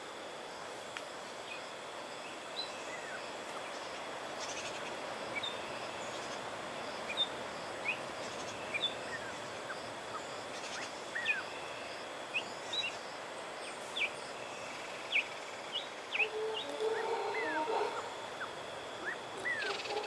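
Rainforest ambience: a distant troop of howler monkeys roaring as a steady low drone, with many short bird chirps and whistles scattered over it and a thin steady high tone. The howling swells louder near the end.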